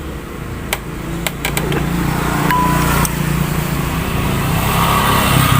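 Small motorcycle engine running steadily, growing louder after the first second or so, with a few sharp clicks early on.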